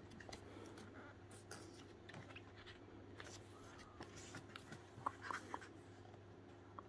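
Faint rustling of photobook pages being turned and smoothed flat by hand, with a few sharper paper clicks about five seconds in, over a low steady hum.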